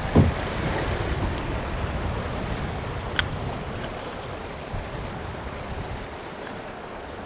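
River water rushing steadily around a drift boat running fast pocket water, easing off slightly toward the end. A short low thump comes just after the start, and a single sharp click about three seconds in.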